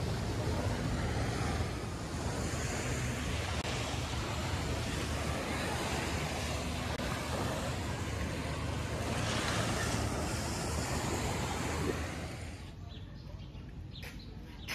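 Small waves washing onto a sandy beach, mixed with wind buffeting the microphone as a steady low rumble and hiss. About twelve seconds in this gives way to a much quieter background with faint bird chirps.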